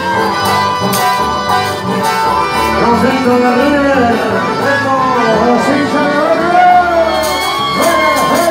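A live band playing folk music, led by accordion over electric bass, amplified through a PA.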